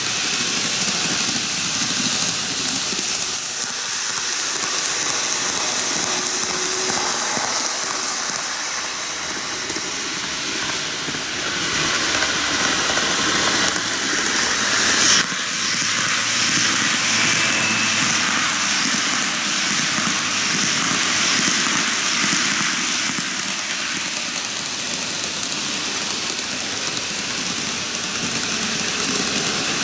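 TOMIX N-gauge model trains running on curved superelevated track: a steady rolling hiss of metal wheels on rail with the whirr of the motor cars, plus a single click about halfway through.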